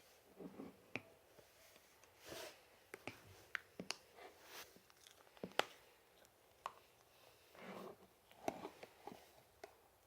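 Hands playing with slime: irregular small clicks and pops with short, soft squelches as it is pressed and stretched.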